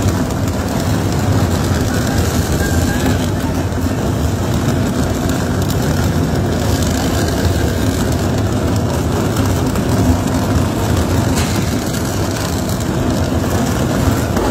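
Steady, loud mechanical rumble and grinding of a tunnel boring machine's cutterhead cutting through the last rock at its breakthrough, mixed with the spray of water hoses on the face.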